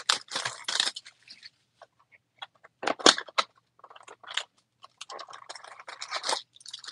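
Cardboard Topps Finest mini box being torn open by hand, with crinkling and crunching in short irregular bursts, the biggest about three seconds in and a longer run near the end.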